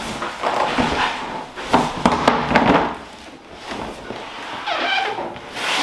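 A boxed appliance being slid out of its cardboard shipping carton: the cardboard scrapes and rubs, with a few knocks, loudest in the first half. A short high squeal follows near the end.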